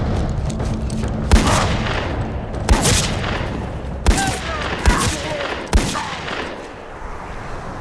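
Handgun shots fired at close range, five in all, roughly a second apart, each a sharp crack with a short echo.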